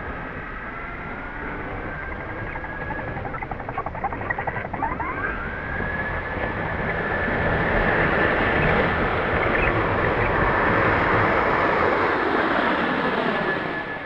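A radio-controlled model's motor rises in pitch about five seconds in and settles into a steady high whine. It grows louder for several seconds, then drops away near the end.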